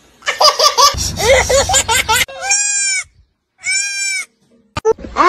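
A young child laughing, then two drawn-out goat bleats, each under a second long, with the laughing starting again near the end.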